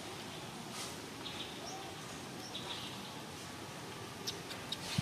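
Outdoor ambience: a steady background hiss with a few short, high bird chirps.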